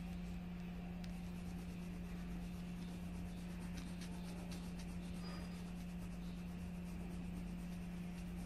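Faint scratching of a colouring pen rubbing on paper as a drawing is coloured in, over a steady low hum.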